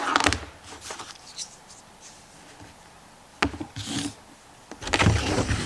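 Handling sounds on a workbench: light rubbing and rustling, a single sharp click about three and a half seconds in, and a louder clatter of knocks and rustle near the end.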